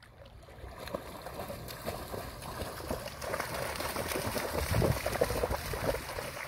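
A dog splashing as it runs through shallow water. The splashing starts about a second in and is loudest a few seconds later.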